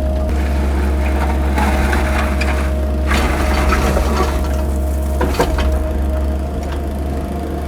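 Mini excavator engine running steadily with a constant whine, while the bucket scrapes and crunches through gravel and mud in several passes; a sharp knock a little past five seconds in.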